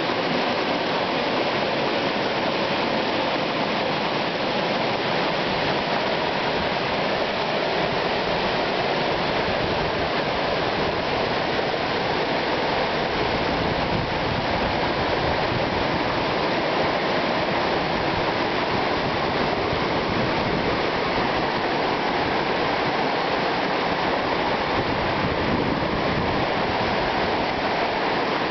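Shallow water flowing steadily over rocks, a continuous rushing with no changes.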